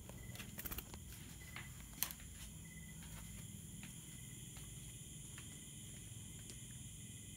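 Faint, steady night chorus of crickets and insects, with a few soft clicks in the first second and a sharper single click about two seconds in.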